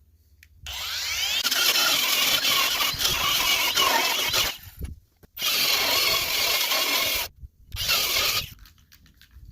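Angle grinder cleaning up fresh welds on the steel brace of a John Deere 337 square baler, in three bursts: a long one of about four seconds, then two shorter ones.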